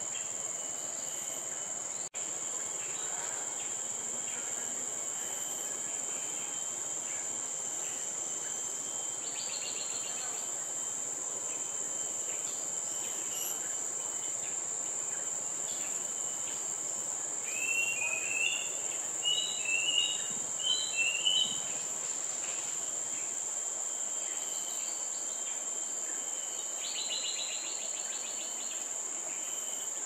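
Steady high-pitched drone of forest insects, with short buzzy insect trills about 9 seconds in and again near the end. From about 17 to 22 seconds in, a bird gives a run of short rising call notes in small groups, the loudest sound here.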